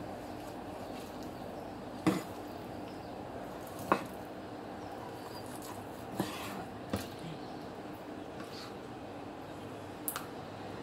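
A kitchen knife cutting through raw chicken breast and knocking against the cutting board: about five sharp, short knocks spaced irregularly, over a steady low hum.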